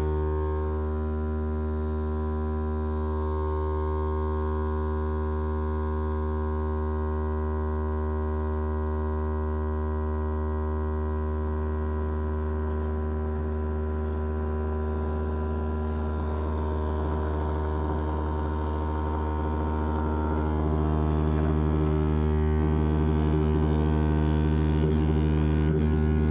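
Loudspeaker playing a steady, buzzy low-pitched tone that vibrates a non-Newtonian fluid poured onto it; the tone gets louder about 20 seconds in.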